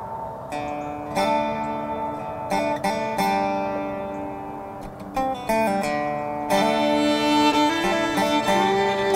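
Background music: plucked string notes, a new note or chord struck every second or so and left to ring.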